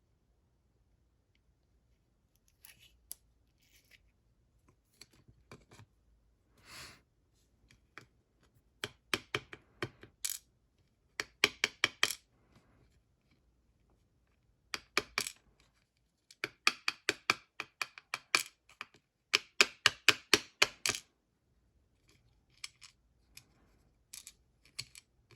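Quick clusters of small metallic clicks and clinks as a Vachette HDI lock cylinder is taken apart, its pins dropping and rattling out onto a hard surface.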